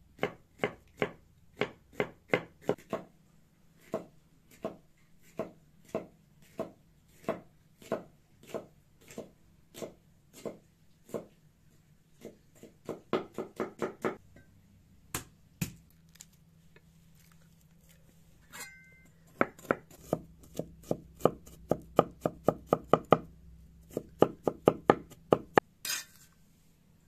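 Knife chopping vegetables on a wooden cutting board: steady chops at first, then quicker runs of rapid chopping in the middle and near the end, with a short pause partway through.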